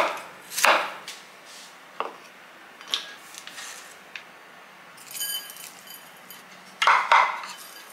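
A cleaver chopping carrots on a wooden cutting board, two sharp strikes in the first second. Then lighter clicks and clinks as the carrot strips are moved into a ceramic bowl, and a short rustle near the end as salt is sprinkled over them.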